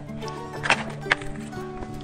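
Background music with a steady beat, over which a clear plastic cake cover rustles briefly about two-thirds of a second in and gives a sharp click a moment later as it is lifted off.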